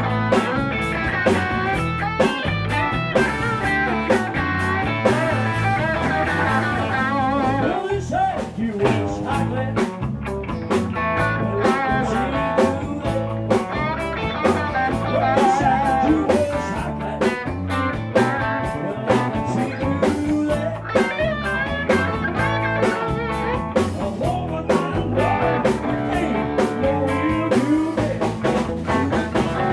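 Live blues-rock band playing an instrumental passage: electric guitar with bent notes over bass guitar and a steady drum-kit beat.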